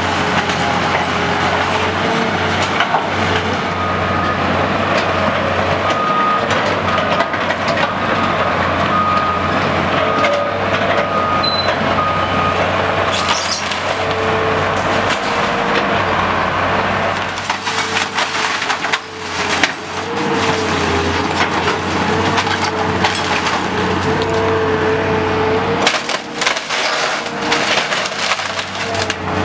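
CAT hydraulic excavator engine running under load as its bucket tears into a wood-frame building, with wood cracking and splintering and debris crashing down; the sharpest cracks come about halfway through and again near the end. A short beep repeats about once a second for several seconds in the first half.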